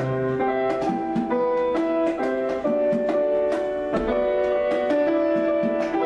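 Piano improvisation with hand-drum accompaniment: piano chords and melody notes over a steady run of drum strikes.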